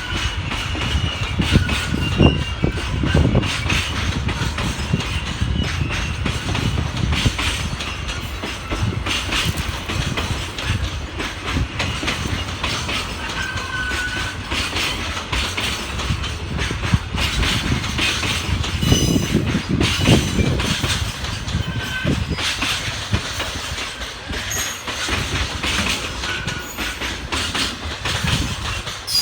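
Freight train cars rolling past, with a low rumble and wheels clacking over rail joints. A few brief, thin wheel squeals come through now and then.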